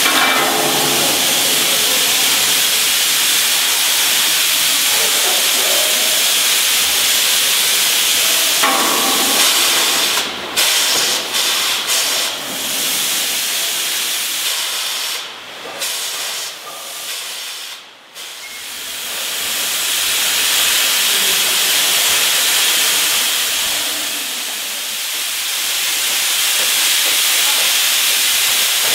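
Loud, steady hiss of steam escaping around a JS 2-8-2 steam locomotive under overhaul. The hiss drops away and stutters several times in the middle, dipping lowest just before it returns at full strength.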